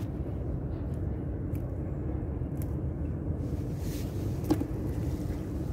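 Steady low drone of a boat engine running, with a few faint clicks as a gill net is handled.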